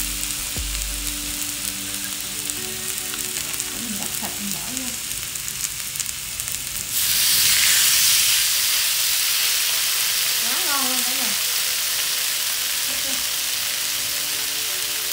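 Vegetables sizzling on a hot Presto electric griddle. About seven seconds in, marinated beef is laid on with tongs and the sizzle suddenly turns louder and brighter, then holds steady.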